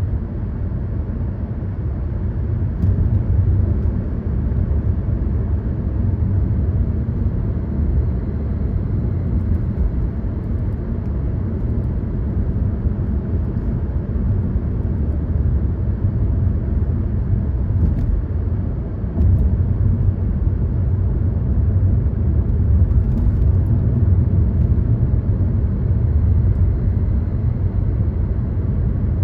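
Car driving along a road: a steady low rumble of tyres and engine, which steps up a little in level about two-thirds of the way through.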